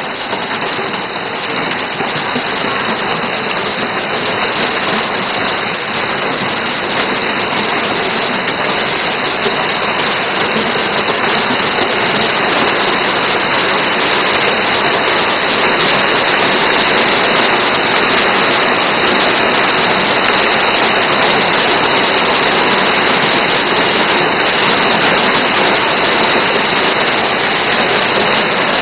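Hailstorm with heavy rain pouring down: a dense, steady rush of hail and water striking surfaces, building a little louder over the first dozen seconds.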